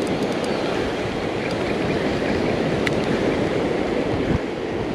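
Surf breaking on the shore, mixed with wind rumbling on the microphone, as a steady wash of noise.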